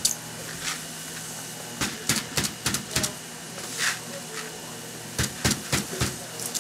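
Green coffee beans poured from a metal scoop into a plastic bucket: a run of sharp clicks and rattles as the beans and scoop strike the bucket, with a longer rush of pouring beans about four seconds in. A steady low hum runs underneath.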